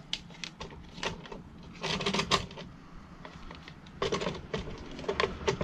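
Handling noise from working on the opened vacuum cleaner and its test gear: a scatter of small clicks and knocks, busiest about two seconds in and again from about four to five seconds in.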